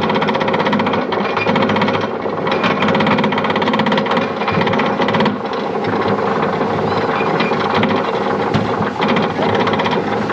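E&F Miler Hi-Miler roller coaster train being pulled up the lift hill by its chain, a rapid, steady mechanical clatter with a steady hum under it.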